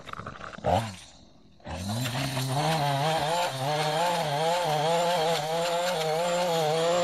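Small gas engine of a handheld stick edger coming up to speed just under two seconds in, after a short blip about a second in, then running steadily with its pitch wavering up and down as the throttle is worked.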